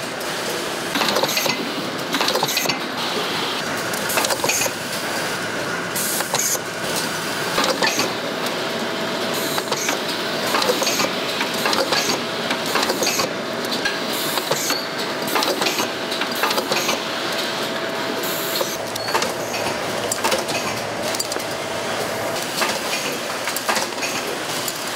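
Automated oil filter production-line machinery running, a continuous clatter of many small clicks and knocks, with a steady tone through the middle.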